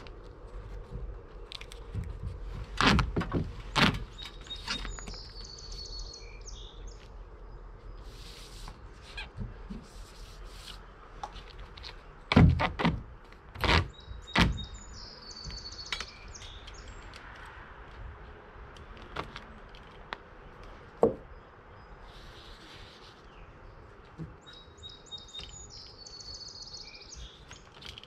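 Clusters of loud knocks and thumps a few seconds in, around the middle and again once later, while flashing tape is pressed and rolled onto a wooden window sill. A songbird repeats the same short chirping phrase three times in the background.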